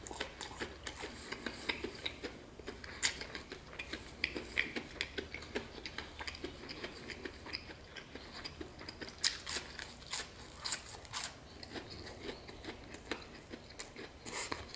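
A person chewing a mouthful of crispy batter-fried chicken, with irregular crunches and clicks and a few louder crunches now and then.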